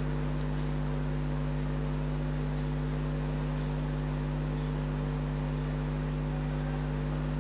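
A steady, even electrical hum from a mains-powered motor or appliance, over the faint hiss of noodles boiling in a steel pot.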